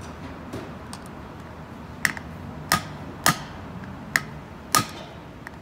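Five sharp metal-on-metal hammer strikes, irregularly spaced, each with a brief ring, as a hammer taps at the wheel seal in a vehicle wheel hub.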